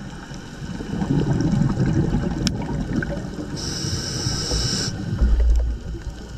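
Scuba diver breathing through a regulator, heard underwater: a low rumble of exhaled bubbles for a couple of seconds, then a short hiss of air drawn through the regulator about halfway through. A deep thud comes near the end.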